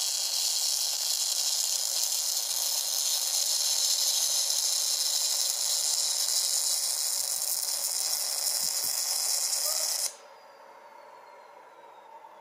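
MIG welding arc from a Translas 7XE fume-extraction torch, running steadily through a timed ten-second weld, then cutting off suddenly about ten seconds in. A faint, slowly falling whine follows.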